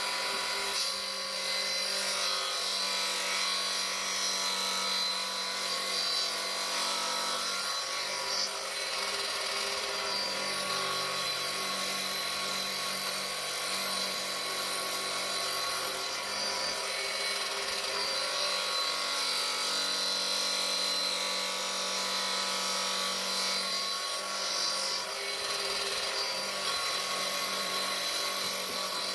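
A woodworking power tool running steadily as it works wood, with a steady whine and the hiss of the cut.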